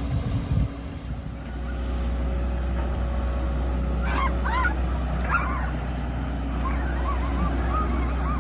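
Heavy machinery engine, most likely the excavator's diesel, running at a steady drone. Over it, from about halfway through, come several short honking calls from waterfowl, in two groups.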